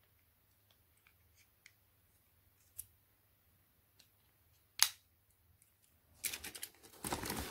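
Quiet handling of a small die-cast toy truck: faint plastic and metal clicks, with one sharp click about five seconds in. About a second later comes a burst of plastic-bag rustling as a hand reaches into a bag of toy cars.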